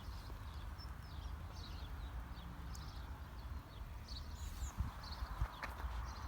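Small birds chirping and twittering over a steady low background rumble, with a few soft knocks near the end.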